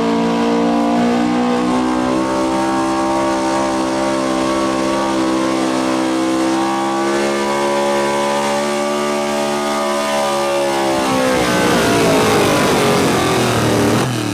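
Gasoline engine of a Ford pickup running flat out under heavy load as it drags a truck-pull sled, holding a steady high pitch. About three-quarters of the way through, the sound turns rough and uneven as the truck is pulled to a stop by the sled.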